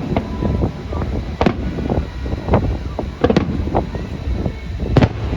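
Fireworks and firecrackers going off in an irregular string of sharp bangs, the loudest about five seconds in, over a steady low rumble, with wind on the microphone.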